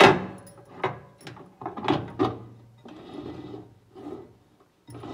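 Glass microwave turntable plate knocking against its plastic roller support ring several times as it is set down and turned by hand to seat it, with a short rolling scrape about three seconds in.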